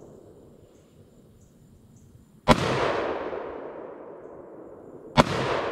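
Two gunshots from an AR-style rifle, the first about two and a half seconds in and the second near the end. Each sharp crack is followed by a long echo that dies away over about two seconds.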